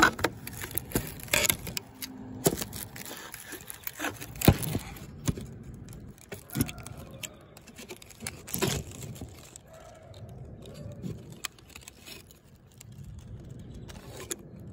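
Irregular handling noise close to the microphone: scattered clicks and knocks with rustling between them, the sharpest knock about four and a half seconds in.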